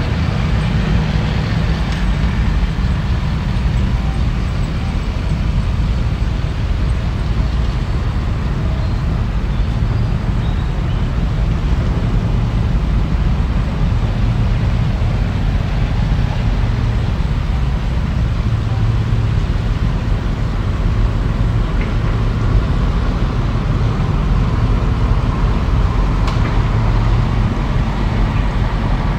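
Hydraulic excavator's diesel engine running steadily, a continuous low rumble.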